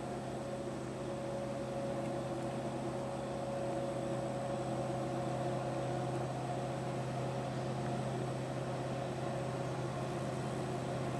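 EMD SD70ACe diesel-electric locomotive, its two-stroke V16 diesel working hard as it hauls an empty coal train up a grade, heard as a steady droning hum that grows slightly louder a couple of seconds in.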